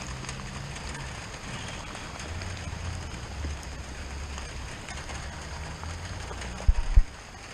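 Steady rain pattering, with a low rumble of wind or handling on the microphone. Two loud, dull low thumps come close together near the end.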